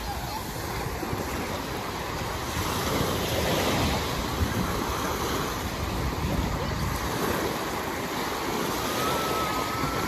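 Small waves breaking and washing up on a sandy shore, with wind buffeting the microphone as a low rumble.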